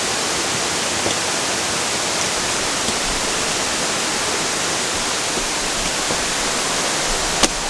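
Waterfall rushing steadily, running full after heavy rain. A single sharp click sounds near the end.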